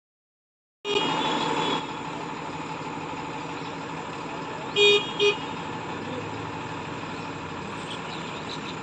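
Tata truck's horn sounding two short toots close together about five seconds in, over a steady mechanical hum from the vehicle. The sound comes in abruptly about a second in, with a louder toned stretch lasting about a second.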